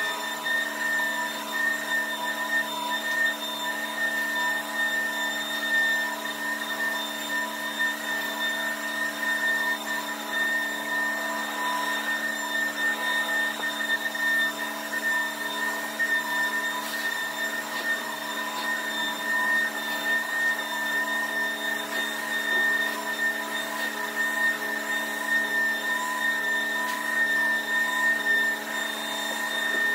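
Carpet-cleaning machine running steadily with a high, unchanging whine over a rushing hiss, its loudness rising and falling a little.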